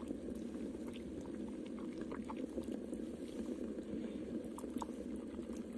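Pot of water with loquat tree bark boiling: a steady bubbling with a few small pops scattered through.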